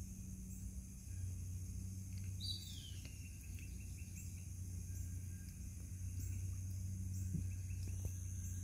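Steady high-pitched insect drone over a constant low hum, with a bird giving one falling whistled call about two and a half seconds in.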